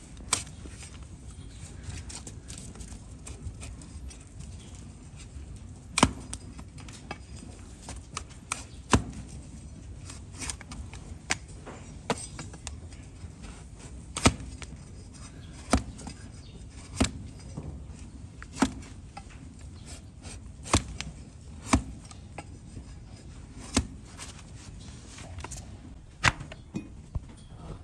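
Donkey hoof being trimmed: a series of sharp chopping cracks as the trimming blade cuts into the hard hoof horn, irregular strokes every one to two seconds, a few in quick succession near the end.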